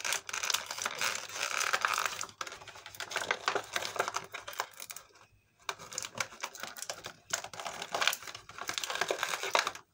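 Plastic blister pack and cardboard backing of an action-figure package being handled and worked open, giving dense rapid crinkling and clicking, with a brief pause about five seconds in.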